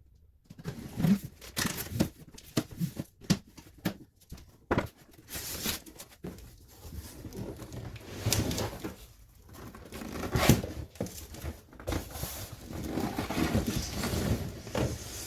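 A cardboard shipping box being opened and unpacked by hand: irregular rustling, scraping and tearing of cardboard and packing material, broken by small knocks and clicks.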